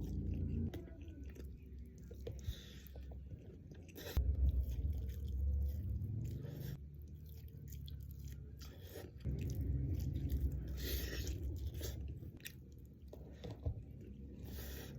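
Close-miked chewing of a mouthful of nasi padang, with a few short crisp bites along the way.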